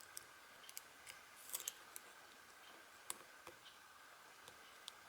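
Faint, scattered metallic clicks and light scrapes of a thin steel lock pick working the pin stack of a Union padlock under light tension, with a small cluster of clicks about a second and a half in.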